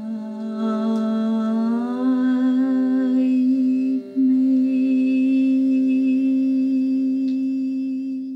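A woman humming a slow tune in long held notes, stepping up in pitch about two seconds in and pausing briefly about four seconds in. A quiet sustained instrumental backing holds steady underneath.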